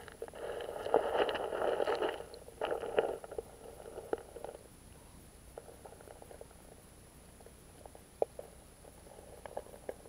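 River water heard underwater through an action camera's waterproof housing in a shallow stream: a louder, muffled stretch of moving water with many small clicks during the first few seconds, then quieter, with a few sharp clicks near the end.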